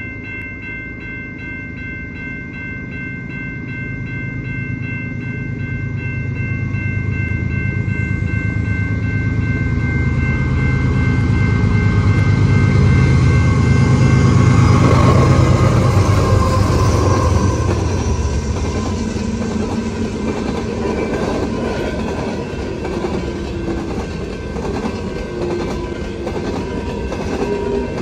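Level-crossing warning bell ringing over an approaching diesel freight train. The rumble of the lead GE locomotives, a CP ES44AC and a KCSM AC4400CW, grows and peaks as they pass about halfway through. After that comes the steady rolling rumble and wheel clatter of covered hopper cars.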